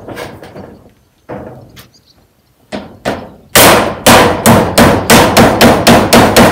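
Hammer nailing corrugated metal roofing sheets onto a wooden roof frame. A few scattered blows, then about halfway through a loud, fast run of strikes, roughly four or five a second, each with a short metallic ring.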